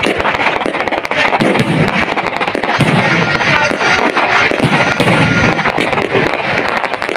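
Aerial fireworks bursting overhead in quick succession: a continuous dense crackle from the star shells, broken by several heavier booms.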